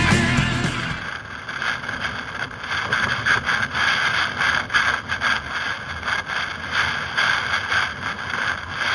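Wind buffeting the microphone of a board-mounted camera, with water rushing and spraying past a windsurf board, in an uneven, gusty noise. Music cuts off about a second in.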